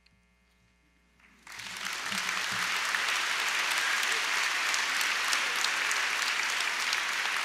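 Audience applauding, breaking out about a second and a half in after a brief hush and then holding steady.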